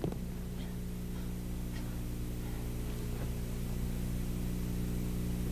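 Steady electrical hum with background hiss on the recording, with a few faint ticks.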